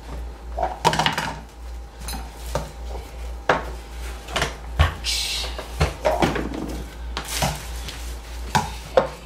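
Irregular knocks, clicks and rustling of hard objects being handled, over a steady low hum.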